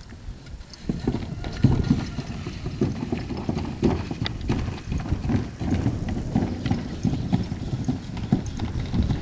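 Irregular thuds and rumbling from a large wheeled plastic trash can being tipped and rolled across packed dirt, mixed with the footfalls of a bison moving around it. The sounds start about a second in.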